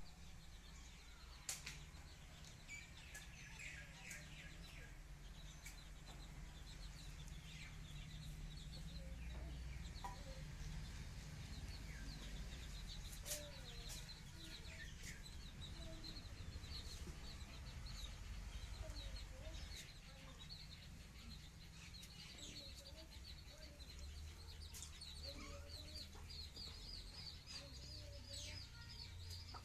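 Birds chirping in quick repeated trills, over a steady low hum, with a few sharp clicks now and then.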